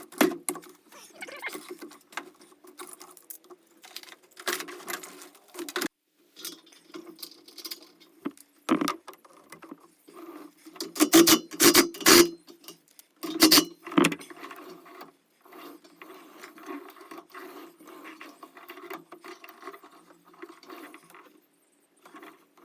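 Hand-work noises from refitting a caravan roof satellite dish: irregular clicks, light scrapes and small metallic knocks of parts and tools being handled, with a cluster of sharper knocks about halfway through and another shortly after.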